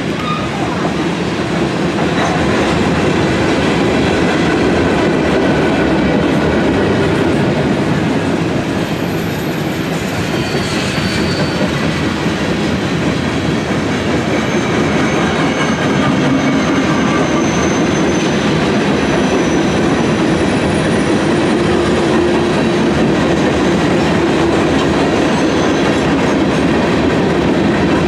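Freight train cars rolling past, hopper, tank and flat cars, their wheels running over the rails at a steady level. Faint high-pitched wheel squeals come and go now and then.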